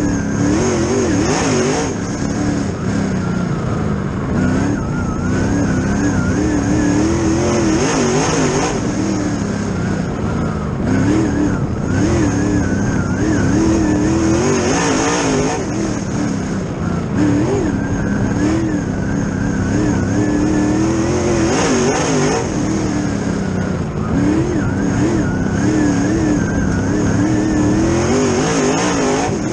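Two-seat Warrior dirt late model race car's engine heard from inside the cockpit as it laps a dirt track, the revs rising and falling again and again.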